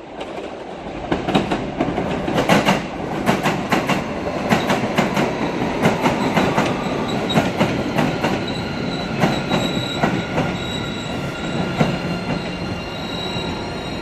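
MBTA Blue Line subway train (Siemens-built 0700-series cars) pulling into the station: a rumble rising about a second in, with wheels clacking over rail joints and switches. From about halfway through, a thin high wheel squeal and a low motor hum join in as it slows.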